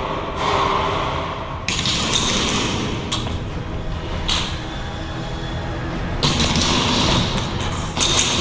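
Irregular bursts of rustling and a few knocks from a player's own movement and gear brushing close to a body-worn camera's microphone.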